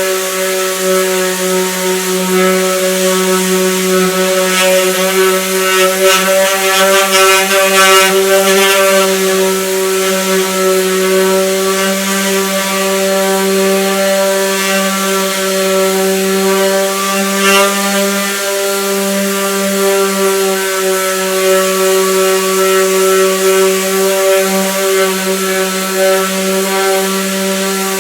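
A small electric motor runs steadily, giving a constant buzzing hum with little change in pitch.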